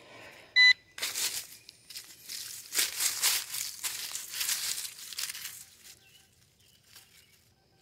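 A short electronic beep from a metal-detecting pinpointer about half a second in, then dry leaf litter crackling and rustling in waves for several seconds as it is pushed aside around the dig hole, dying away near the end.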